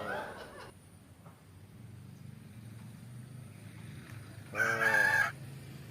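A rooster crows once, briefly, about four and a half seconds in.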